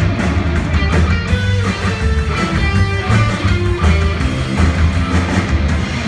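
Live band playing: electric guitar over a strongly plucked upright double bass and a drum kit keeping a steady beat.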